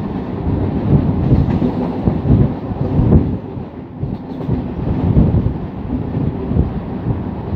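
Siemens EMU suburban local train running at speed, heard from an open coach doorway: a steady low rumble, with the wheels clattering irregularly over the rails. The sound dips briefly about halfway through.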